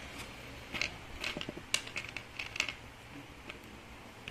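Irregular light clicks and taps from hands handling the plastic housing of a Makita DDF458 cordless drill, coming thickest in a run of quick clicks in the first half.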